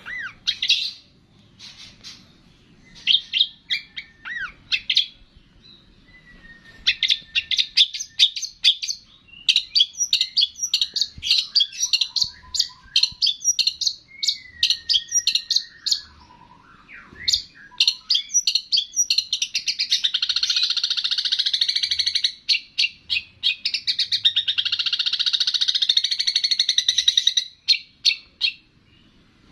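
Songbird song for training cage birds: bursts of rapid, high chipping notes with a few sliding whistles, then two long, fast rattling trills in the last third.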